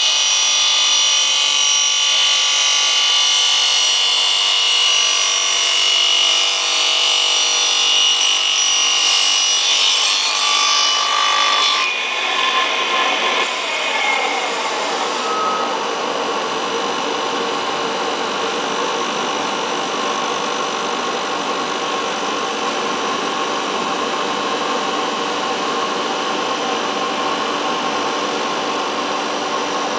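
Motor-driven circular saw on a traveling cross-cutter cutting through a PVC foam board. For about the first twelve seconds it is a steady, high-pitched whine with several tones; it then changes to a lower, rougher machine noise.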